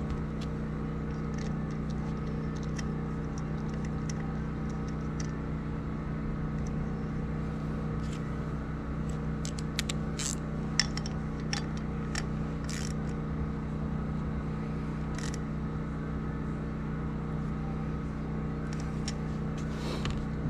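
Light clicks and taps of small metal carburetor parts being picked up and handled on a workbench, most of them in the middle of the stretch with one sharper click. Under them a steady machine hum with several pitches.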